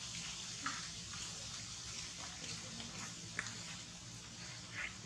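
Steady outdoor background hiss with three short, faint high chirps scattered through it.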